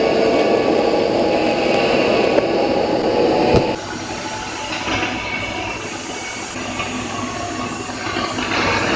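Stick (SMAW) welding arc crackling steadily, then breaking off with a click a little over a third of the way in. After that comes a steadier, quieter workshop noise that grows louder again near the end.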